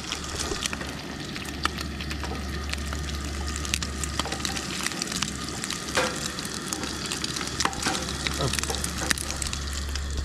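Food sizzling and crackling in a frying pan, with many small pops and a steady low hum underneath.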